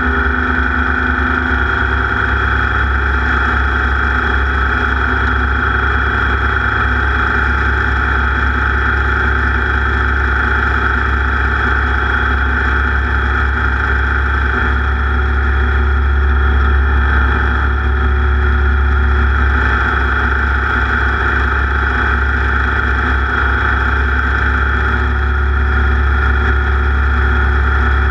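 A racing engine running steadily at speed during a race lap, growing a little louder about halfway through.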